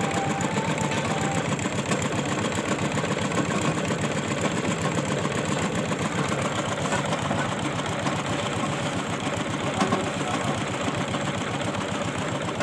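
Engine of a tube-well boring machine running steadily, with an even, rapid pulse.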